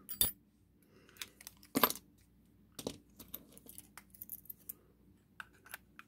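Small metal lock-picking tools and a key on a key ring clicking and clinking as they are handled and set down: a few sharp separate clicks, the loudest about two seconds in, with lighter ticks between.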